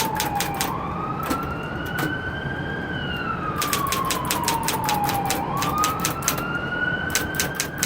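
Smith Corona Coronet Automatic electric typewriter typing in quick runs of keystrokes with short pauses between them. A siren wails slowly up and down at the same time.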